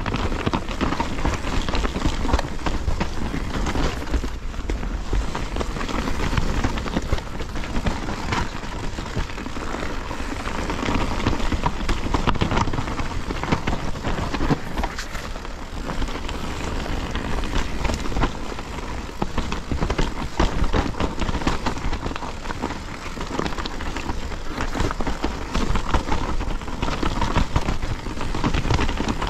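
Mountain bike descending a rocky forest trail: tyres rolling and crunching over loose stones, the bike rattling over the bumps, with heavy wind rumble on the microphone.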